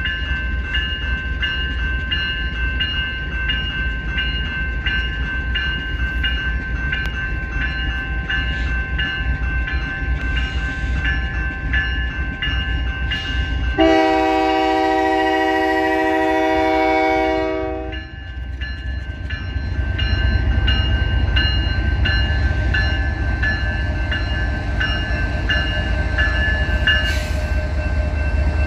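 A level-crossing electronic bell (General Signals Type-2) rings in a steady repeating rhythm. About 14 s in, the diesel locomotive sounds one long horn blast of about four seconds. After it, the low rumble of the approaching GE ES44DC locomotive grows louder under the bell.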